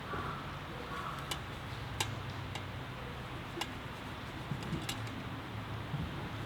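Wood fire crackling: sharp, irregular pops about once a second over a steady low rush.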